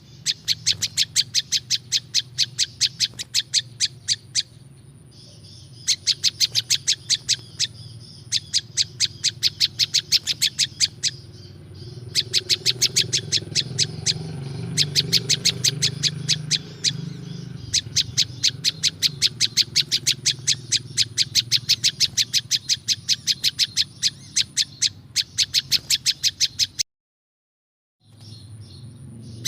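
Prenjak lumut songbird calling: long runs of sharp, rapid chip notes, about five a second, broken by short pauses in which a softer warbling twitter is heard. The sound drops out completely for about a second near the end.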